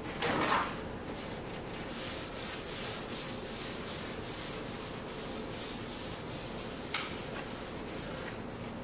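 Paper towel rubbing over a cast iron surface plate, wiping off carburetor cleaner and a heavy coat of Boeshield rust protectant: a steady scrubbing hiss. Paper rustles just after the start, and there is a short tick about seven seconds in.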